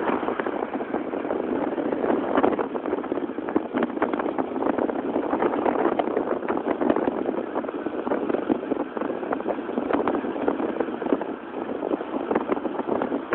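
Wind buffeting the microphone over the steady rush of a vehicle moving at speed, with irregular crackling gusts throughout.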